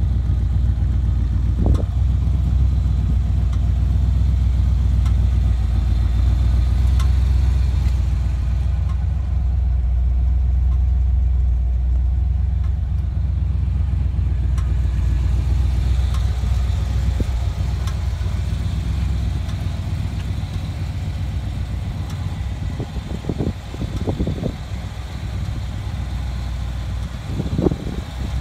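1960 Chevrolet Impala's engine idling, a steady low rumble that grows somewhat fainter in the last several seconds, with a few thumps near the end.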